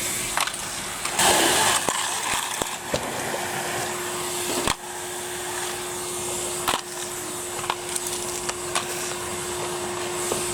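Numatic Henry vacuum cleaner running with a steady hum and rushing suction, with scattered clicks and a louder rush of air about a second in. The hum breaks off for a moment a little before halfway, then carries on.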